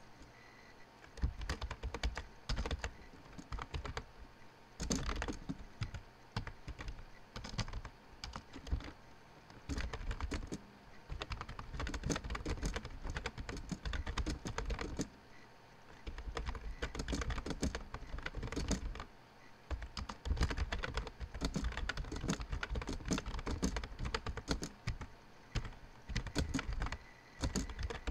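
Typing on a computer keyboard: rapid key clicks in runs of a few seconds, broken by short pauses.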